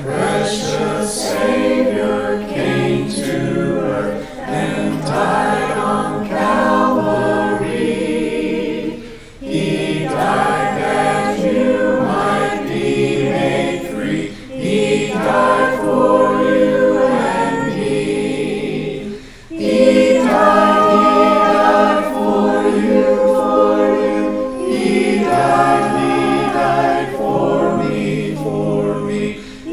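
Mixed choir of men's and women's voices singing a gospel hymn in harmony, unaccompanied. It breaks briefly between phrases twice.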